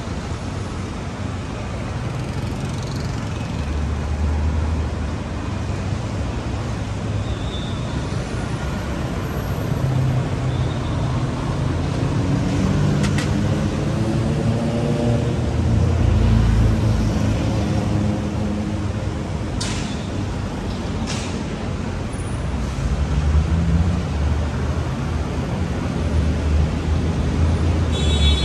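City street traffic: vehicle engines running steadily with road rumble. A heavier engine passes in the middle, its pitch rising and falling, and a few short hisses cut through.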